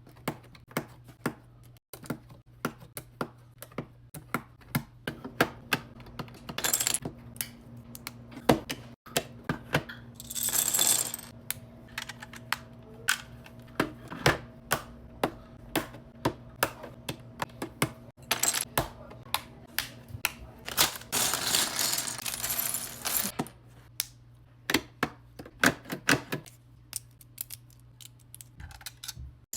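Plastic Lego pieces clicking and clattering: a long, irregular run of sharp clicks, with two longer bursts of rattling, about ten seconds in and again a little past twenty seconds, as loose pieces knock together.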